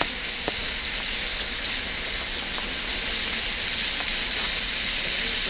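Pork belly sizzling steadily in a frying pan on a portable gas stove, with a few faint clicks as tongs turn the meat.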